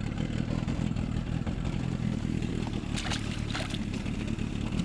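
Small boat's outboard motor idling steadily, with a few light clicks and knocks about three seconds in.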